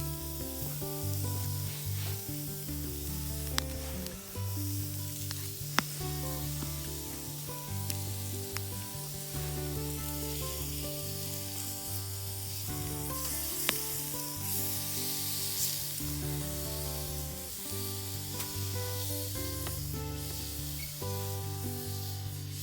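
Background music of held bass notes and slow chords, over a wood campfire hissing and crackling, with a few sharp pops.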